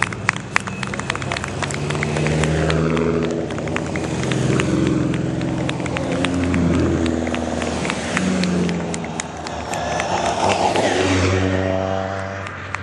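Hill-climb race cars taking a hairpin one after another, their engines revving hard, climbing in pitch and dropping back at each gear change as they brake and accelerate out. A few sharp clicks come near the start.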